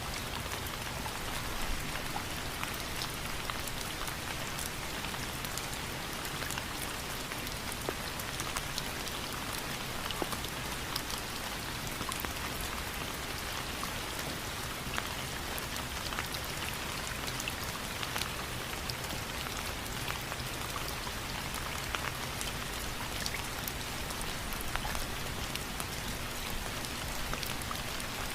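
Steady rain falling, a constant hiss of drops with many small, crisp drop ticks landing on a surface.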